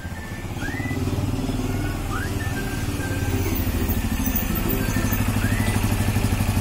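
Benelli Imperiale 400's single-cylinder engine running at low speed as the motorcycle rolls up close and settles to idle, with a steady low pulsing beat. Short rising whistle-like notes recur faintly over it.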